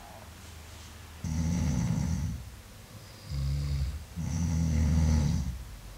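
A sleeping person snoring: three low snores, each about a second long, with short quiet gaps between.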